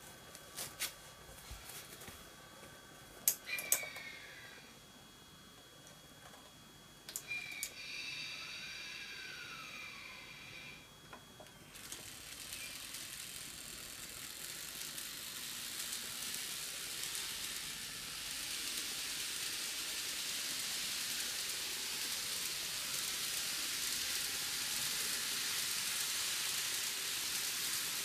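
N-gauge model train of a Microace E231-1000 series set starting off and gathering speed round an oval track. Its running noise is a steady hiss that grows louder as it speeds up. Before it gets going there are a few clicks and a short high-pitched whine.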